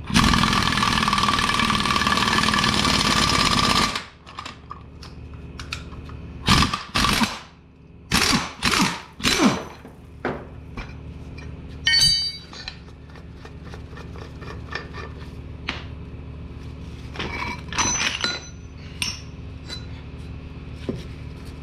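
Impact tool hammering hard for about four seconds, then five short bursts, a single ringing metal clank about twelve seconds in, and a few lighter bursts and clinks later. This is a new rear wheel bearing being driven into a Ford Focus hub knuckle with a socket instead of a press, until it seats.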